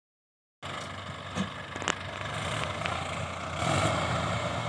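Diesel tractor engines running together under load as a line of tractors hauls a heavily loaded sugarcane trolley. The sound starts about half a second in and grows louder from about three and a half seconds in.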